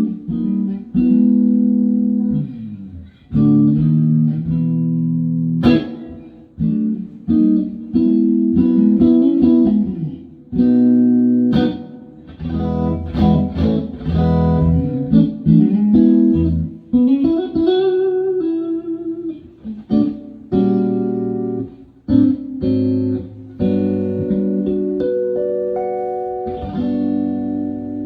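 Stratocaster electric guitar with Fatpups Crossroads pickups, played clean through a 5E3 Tweed Deluxe amplifier with reverb. Strummed chords and picked single notes come in short phrases with brief pauses, with one string bend a little past the middle.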